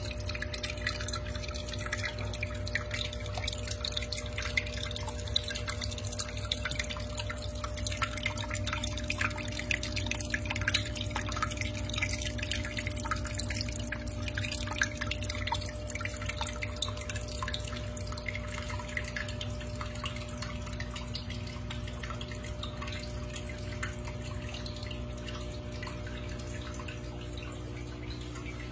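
Water trickling and dripping over rocks in a paludarium waterfall, many small splashes that thin out in the second half, over a steady low hum.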